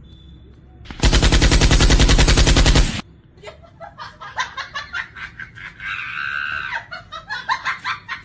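A loud, rapid, even rattle of sharp strikes lasting about two seconds, starting about a second in, followed by scattered clicks and brief voice-like sounds.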